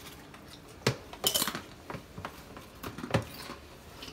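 A spoon clinking and scraping against a plastic tub as chicken is scooped out onto tortilla chips in a foil tray, with the chips crunching under it. Several sharp knocks come at uneven intervals, the loudest at about one and three seconds in.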